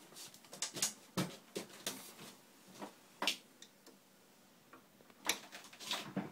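Irregular light clicks and taps of hand tools, a wide screwdriver among them, working on the screws of a generator's alternator housing.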